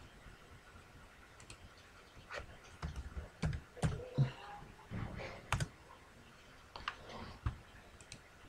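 Computer keyboard typing and clicking: a scattered run of quiet taps and light knocks, busiest from a couple of seconds in.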